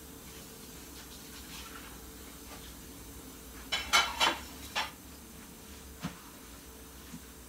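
Kitchenware clinking and knocking on a table: a quick cluster of about four sharp clinks a little over halfway through, then a single knock a couple of seconds later.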